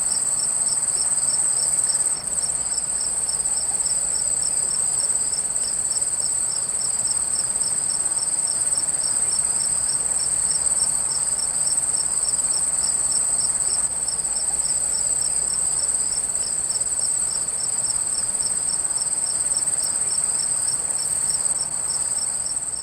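Crickets chirping in the rain: a steady high trill over regular, evenly spaced pulsed chirps, with an even hiss of rainfall beneath.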